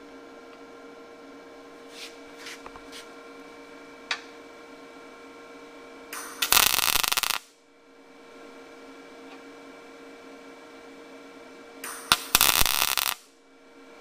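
MIG welder striking two short tack welds on steel tubing, each arc burst lasting about a second, the second about five seconds after the first. A steady hum runs under them, and a few light clicks come two to four seconds in.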